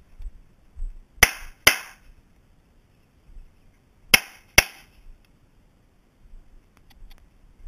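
Vektor SP1 9x19mm pistol fired in double taps: two pairs of sharp shots, each pair about half a second apart and the pairs about three seconds apart, with one more shot at the very end.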